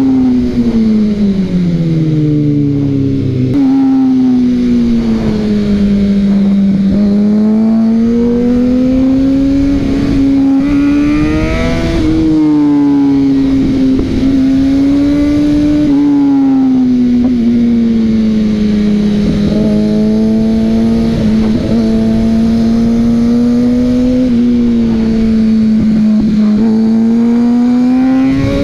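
Kawasaki ZX-6R 600 supersport inline-four engine under way, its note falling and rising with the throttle, climbing sharply near the middle and again near the end, over a steady rush of wind.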